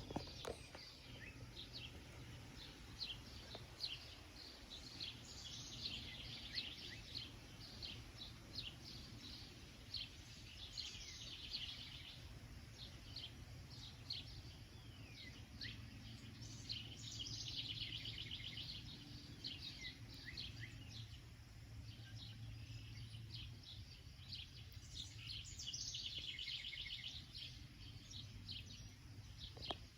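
Several songbirds chirping and singing, with a trilled song that comes back every five to eight seconds among many short high chirps, over a low steady rumble.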